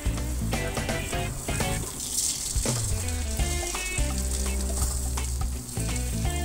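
Thai omelette with fermented pork (naem) frying in oil in a wok, with a steady sizzle. Background music plays underneath.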